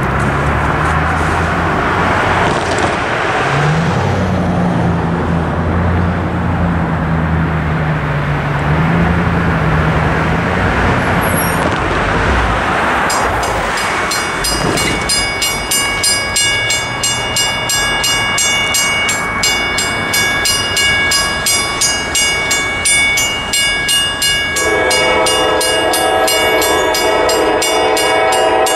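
Road traffic hums at first. About halfway in, the crossing's Western Cullen Hayes mechanical bell starts ringing in fast, even strikes as the warning signals activate. Near the end an approaching Norfolk Southern locomotive's horn sounds a steady multi-tone chord over the bell.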